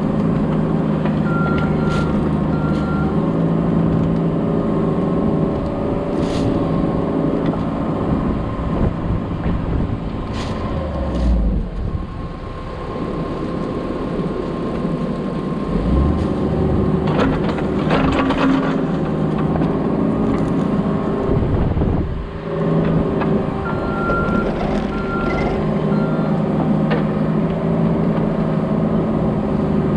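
Diesel construction machine running steadily, with its backup alarm beeping three times near the start and three times again near the end, and a few metal knocks in between.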